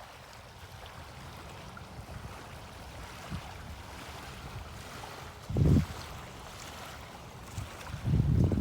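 Wind buffeting a phone's microphone over a steady outdoor hiss of wind and water. There is one short, heavy gust a little past halfway, and stronger buffeting sets in near the end.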